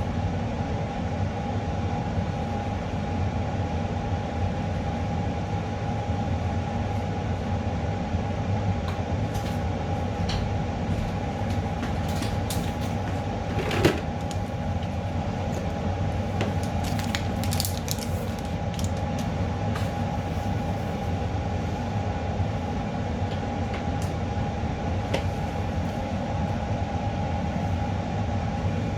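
A steady machine drone with a constant mid-pitched tone over a low rumble. A scattering of small clicks and ticks comes in toward the middle, the loudest about halfway through.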